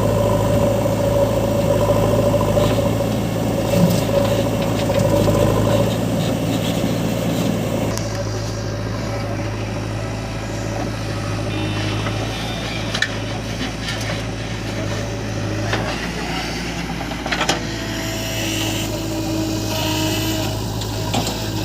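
Diesel engine of a JCB 3DX backhoe loader running steadily, with a few short knocks in the second half.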